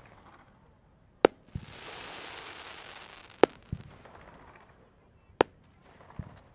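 Aerial fireworks bursting: three sharp bangs about two seconds apart, each followed by a softer, lower thump, with a hissing rush between the first two.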